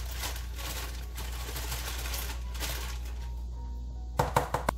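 Aluminium foil crinkling as baked apple pieces are tipped from it into a bowl of batter, followed about four seconds in by a few loud, sharp knocks as a spatula scrapes and taps the last pieces off the foil.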